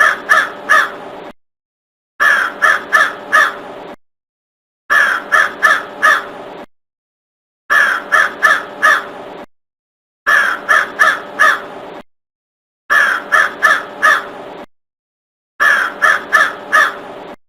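Crow cawing: a quick series of four harsh caws, then a pause of dead silence. The identical series repeats about every two and a half seconds, seven times, as a looped sound-effect recording.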